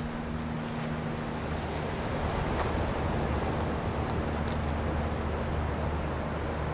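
Steady rushing noise of surf on a cobble beach, with a low steady hum underneath and a few faint clicks.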